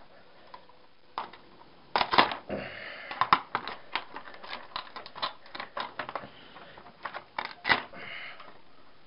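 Irregular clicking and clattering of hand tools and small metal parts as copper-wound components are cut and pried off a TV circuit board, with a few louder knocks among many light clicks.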